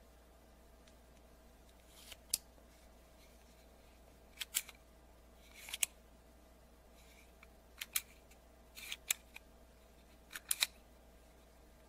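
XIFEI 3-in-1 cigar cutter clicking and snapping as it is handled and its parts are worked by hand: about a dozen sharp clicks at irregular intervals, several in quick pairs or clusters.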